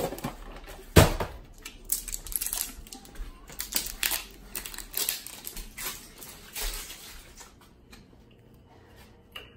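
Plastic bags and packaging crinkling and rustling as someone rummages through a pantry, with a sharp knock about a second in. The rustling dies away about two seconds before the end.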